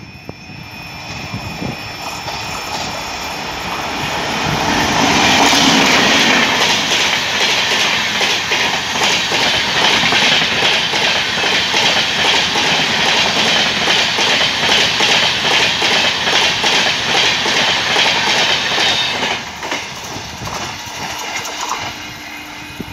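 Indian Railways electric-hauled passenger express passing close at speed. The noise builds as the locomotive approaches, then the coaches' wheels clatter fast and steadily over the rail joints. The clatter drops away to a quieter rumble about 19 seconds in as the train passes.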